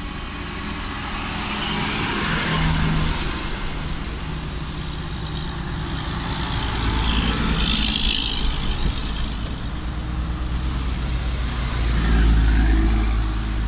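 Loaded semi-trucks with diesel engines pulling uphill past the microphone one after another: a steady low engine drone with tyre noise, swelling as each truck comes close.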